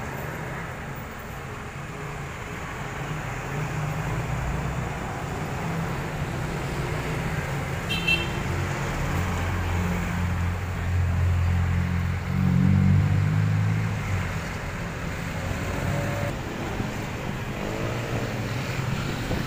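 Street traffic: the engines of passing vehicles, loudest as one passes close between about nine and fourteen seconds in, with a short high beep about eight seconds in.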